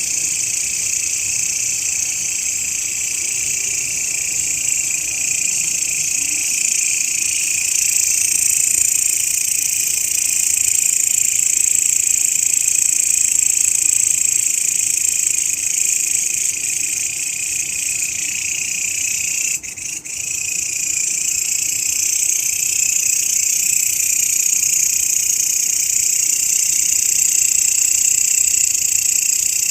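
Grasshoppers calling in a continuous shrill, high buzz, with a brief break about twenty seconds in.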